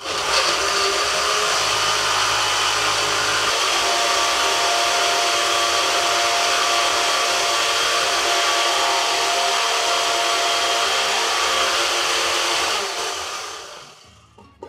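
Countertop blender running, blending raspberries, yogurt, almonds, oats and coconut milk into a smoothie. It starts abruptly, runs steadily, and winds down near the end.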